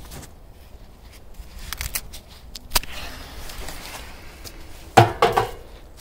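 Handling noises at a washing machine as a firecracker grenade is put in: a single sharp click about three seconds in, then a brief clatter of hard knocks with a short ringing note near the end.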